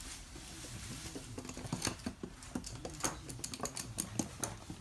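Toy poodles' claws clicking on a hard floor as they move about, in quick, irregular clicks that come thicker about halfway through.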